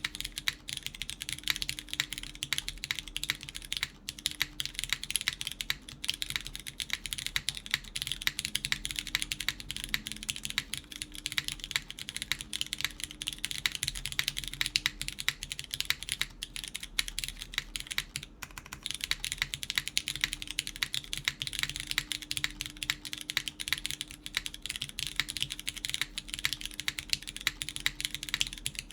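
Continuous steady typing on a gasket-mounted mechanical keyboard with Cherry MX Brown tactile switches, lubed with Krytox 205g0 and fitted with 62g springs and switch films, on an FR4 plate with GMK keycaps: a dense stream of key clacks with no pauses.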